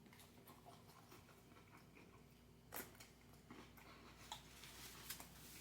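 Near silence with a few faint, scattered clicks; the clearest comes about three seconds in.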